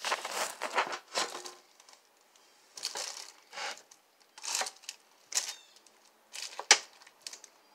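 Plastic slow-cooker liner crinkling and scraping as gravy mixture is spread over chicken thighs, in short irregular bursts, with one sharp knock near the end.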